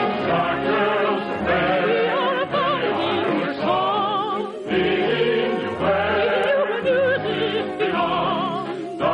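Operetta music: an orchestra playing with singers whose voices carry a wide vibrato, in phrases a second or two long.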